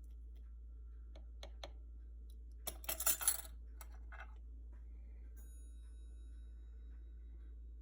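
Kitchenware clinking: a few light clicks, then a brief clatter about three seconds in and a faint ringing after it, over a steady low hum.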